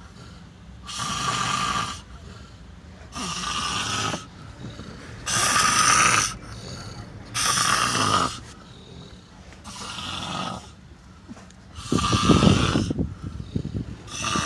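A man snoring loudly, one rasping snore about every two seconds, with the one near the end harsher and more rattling.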